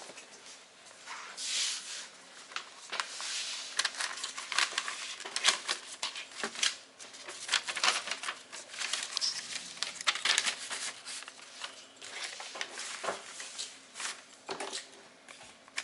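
Close handling noise: irregular crinkling and rustling with many small sharp clicks and taps.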